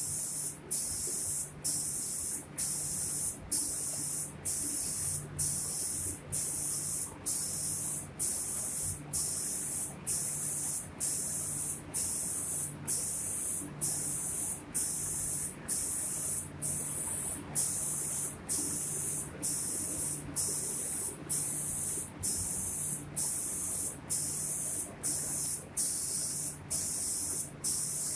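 Automatic paint spraying machine's spray guns hissing in short, even bursts, about three every two seconds, each broken off by a brief gap, over a low machine hum.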